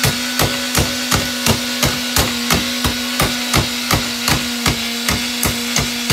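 Rapid, evenly paced hammer blows, about three a second, smashing a Bissell handheld vacuum cleaner, over a steady hum of its motor still running.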